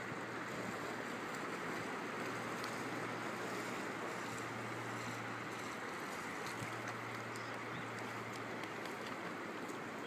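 Shallow water rippling and lapping gently over a sandy shore: a steady wash of water noise, with a faint low hum underneath.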